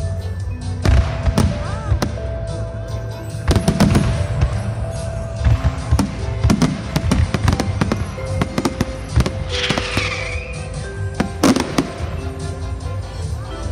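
Fireworks exploding in a display: a run of sharp bangs and crackles, some coming in quick clusters, with music playing underneath.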